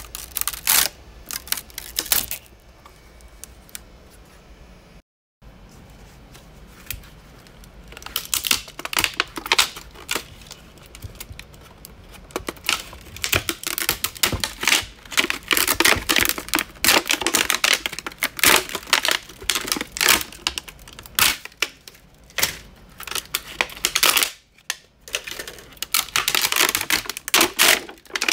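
Support material being snapped and peeled off a 3D-printed plastic part: rapid runs of small plastic cracks and clicks, sparse at first and nearly continuous in the second half.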